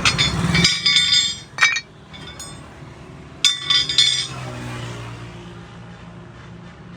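Metal parts or tools clinking and ringing against each other in three short clusters, during roadside work on a truck's wheel hub and brake drum.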